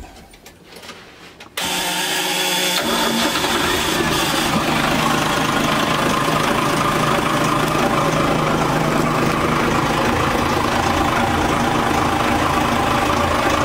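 A Marine Trader Europa trawler's 125-horsepower diesel engine being started: about a second and a half in it bursts into sound, catches about a second later and settles into a steady idle. It is heard through the open engine-room hatch.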